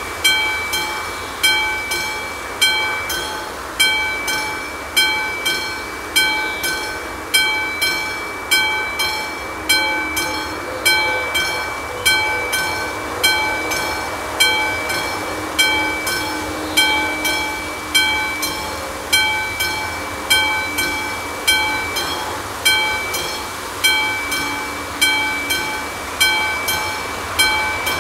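Mechanical level-crossing warning bell (classic bell on an AŽD 71 crossing signal) ringing in evenly spaced strikes, a little faster than one a second, each stroke ringing on. It is the crossing's warning that a train is approaching, sounding while the red lights flash.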